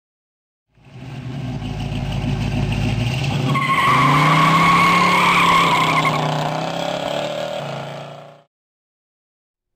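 Car engine revving: a low rumble that climbs in pitch about three seconds in, holds, then fades out.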